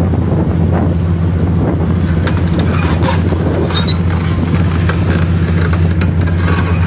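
Caterpillar crawler bulldozer's diesel engine running under load with a steady low drone, as its rear ripper shank tears through packed earth and concrete rubble, with scattered cracks and clatter of breaking debris.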